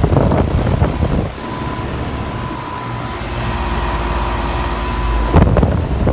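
Outdoor air-conditioner condenser running with a steady low hum and a constant whine, after a second or so of rustling at the start; a brief loud burst of noise comes near the end.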